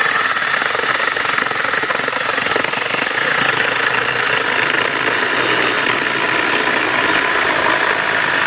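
Milwaukee Fuel battery-powered mini chainsaw running steadily under load as its chain cuts through a weathered pallet board.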